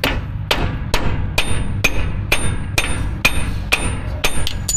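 Hammer blows on a steel punch set in the Jeep Wrangler's driveshaft slip yoke, driving the part off. About ten evenly spaced strikes come a little over two a second, each with a short metallic ring.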